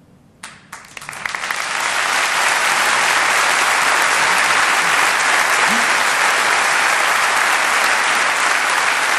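Large concert audience applauding: a few scattered claps about half a second in, swelling within two seconds into steady, full applause.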